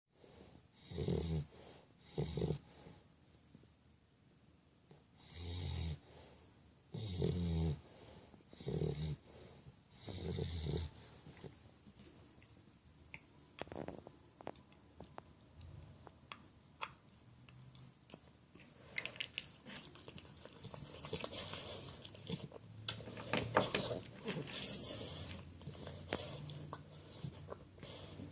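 English Bulldog puppy snoring in its sleep: a run of loud snores, each under a second long, every second or so over the first ten seconds or so. Then softer breathing, and louder, rougher, hissier breaths again for several seconds near the end.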